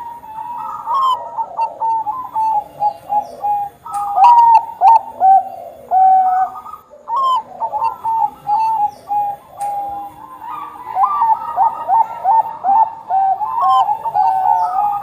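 Bangkok-strain zebra doves (perkutut) cooing: rapid strings of short, stuttering notes, thinning out about two-thirds of the way through and then picking up again.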